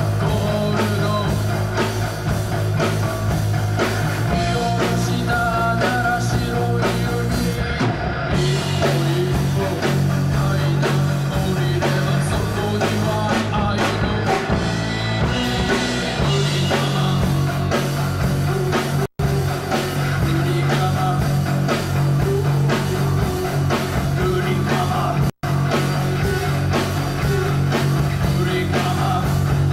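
Three-piece rock band playing live: electric guitar, bass guitar and drum kit. The sound drops out for an instant twice, about two-thirds of the way through.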